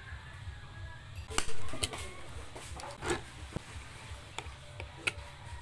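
A few sharp knocks and clinks of a kitchen knife, a tin can and utensils handled on a tabletop, the loudest about one and a half seconds in, over a low steady hum.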